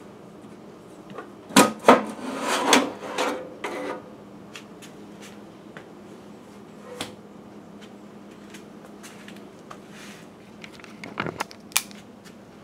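Sheet-metal lid of a Waters solvent pump being slid off its chassis. Two sharp metal clunks about a second and a half in, then a scraping slide with more knocks for two seconds or so, then light handling clicks, and a short cluster of knocks near the end.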